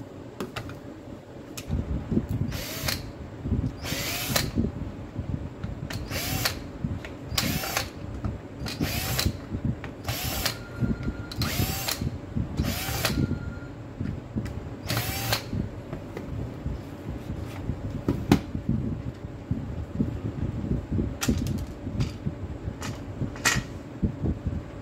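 Cordless drill-driver running in short bursts, about ten of them roughly a second apart and a few more near the end, each whirring up quickly in pitch as it backs out the housing screws of a Makita DDF446 driver drill. Handling and rustling noise fills the gaps.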